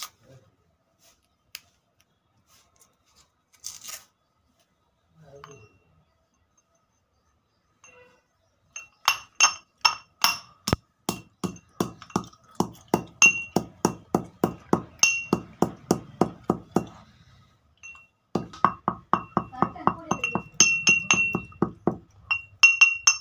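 Stone pestle pounding and grinding pieces of oil pastel in a stone mortar: a few light clicks, then rapid repeated strikes, about three a second, each with a short ringing clink, pausing briefly about three quarters of the way through.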